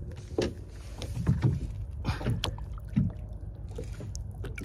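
Irregular water splashes and sloshing as a speckled trout is held in the water by hand beside a boat for release.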